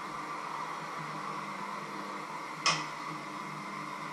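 Steady mechanical whir of a small electric motor, with one sharp click about two and a half seconds in.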